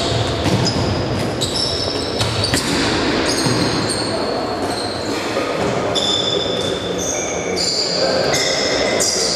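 Indoor futsal play in a sports hall: many short high squeaks of players' shoes on the court floor, a few sharp ball kicks, and occasional player shouts, all echoing in the hall.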